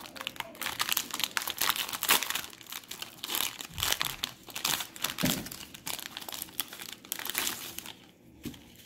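Plastic-foil wrapper of a trading card pack crinkling and crackling as it is torn and pulled open by hand, in quick irregular crackles that die away near the end.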